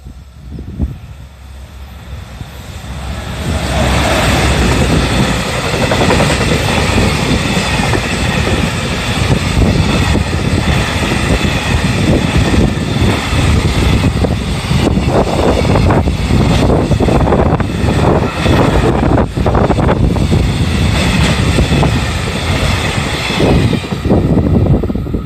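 EF210 electric locomotive hauling a freight train by at close range: the rumble builds over the first three to four seconds, then stays loud and steady as the wagons roll past, with frequent sharp clatters from the wheels in the second half.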